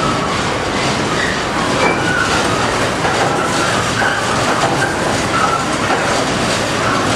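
Olive oil mill machinery running: a loud, steady mechanical din, with brief high tones now and then.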